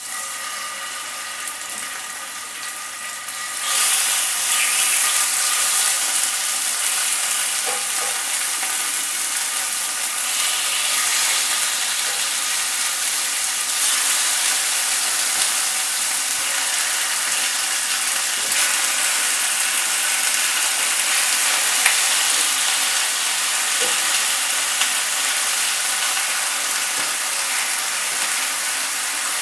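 Chicken pieces searing in hot oil in a skillet: a steady, loud sizzle that steps up in level about four seconds in and then holds.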